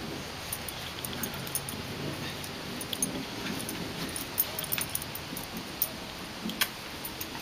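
Metal tags on a dog's collar jingling in quick, irregular clinks as a wet dog is rubbed down with a towel, with the soft rustle of the towel underneath.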